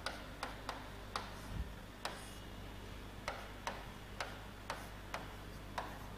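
Irregular sharp taps and clicks, about two a second with a short pause in the middle, typical of someone writing on a board by hand.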